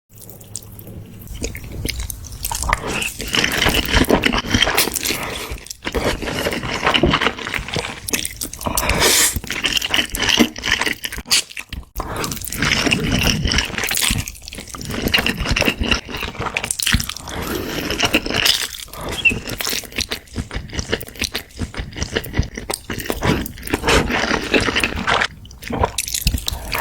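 Close-miked eating: crisp crunching and chewing, a dense run of crackly bites with short pauses between mouthfuls.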